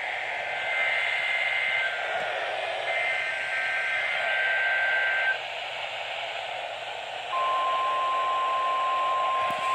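NOAA Weather Radio Emergency Alert System broadcast over a weather alert radio's speaker, with static behind it. It plays the warbling two-tone digital SAME header data in two bursts, then, about seven seconds in, the steady weather radio alert tone begins. This is the station's required weekly test.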